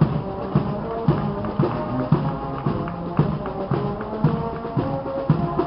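Military marching band playing a march: held brass-like notes over a steady drum beat at about two beats a second.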